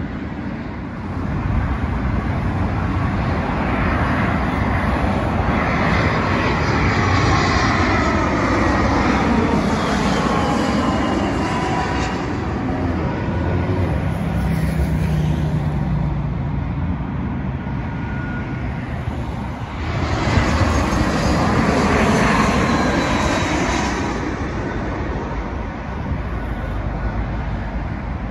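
Two jet airliners pass low overhead one after the other on approach to land. Each brings a swelling jet engine roar with a sweeping whine that dips in pitch and climbs again as it goes over. The first passes about eight to ten seconds in, the second about twenty-two seconds in.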